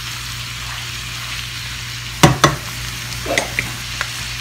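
Raw beef chunks frying and sizzling steadily in chorizo fat in a stainless steel pot while being stirred with a wooden spoon. The spoon knocks sharply twice against the pot a little over two seconds in.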